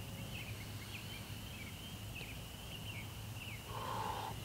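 Outdoor evening chorus of high chirping calls: a steady shrill band with many short chirps over it. A brief hissy noise comes in near the end.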